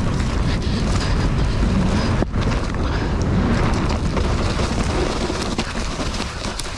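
Mountain bike descending a dirt forest trail: wind buffeting the action camera's microphone over tyre rumble, with rattles and knocks from the bike over bumps, one sharp knock about two seconds in. The noise eases off near the end as the bike slows.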